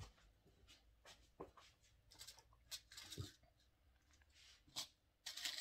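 Near silence with faint rustles and light ticks of hands handling a curly wig on a mannequin head while pinning it down, a dull knock about three seconds in and a louder rustle near the end.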